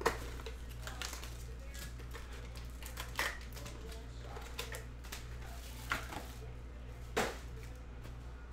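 Cardboard hobby box of 2019-20 Panini Chronicles basketball cards being opened and its foil packs handled: scattered clicks, taps and rustles, a few sharper knocks among them. A steady low electrical hum runs beneath.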